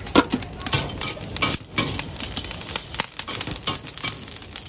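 Irregular clicks and clinks of utensils and dishes being handled, over a steady background hiss.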